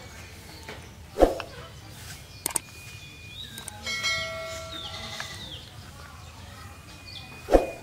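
Two sharp knocks or clanks about six seconds apart, with animal calls in the middle.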